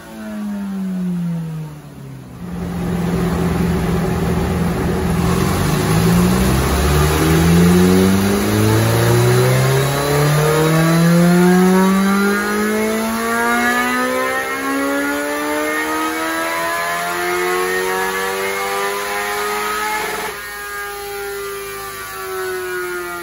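2007 Suzuki GSX-R1000 inline-four engine on a roller dyno: revs falling at first, then from about three seconds in a long pull with the revs climbing steadily for some seventeen seconds. About twenty seconds in the throttle is cut sharply and the revs wind down.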